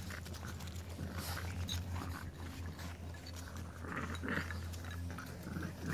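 Puppies at play, wrestling and making small dog sounds, with a cluster of them about four seconds in. A steady low hum runs underneath.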